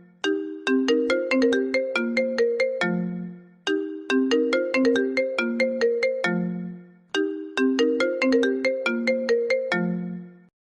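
iPhone ringtone playing a short melody of quick struck notes, each ending on a lower held note. The phrase repeats three times, about every three and a half seconds.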